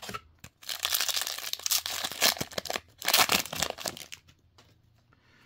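Rustling and sliding of baseball trading cards being handled and shuffled by hand, with louder rustles about two and three seconds in.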